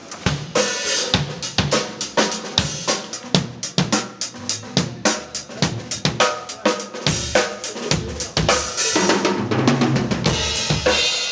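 Drum kit played at a band sound check: kick drum, snare and hi-hat with cymbals, in a fast, steady rhythm of sharp strikes.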